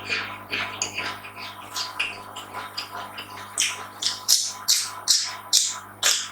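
Close-up mouth sounds of a person eating: wet chewing and smacking, a quick run of crisp bites, several a second, growing louder about halfway through.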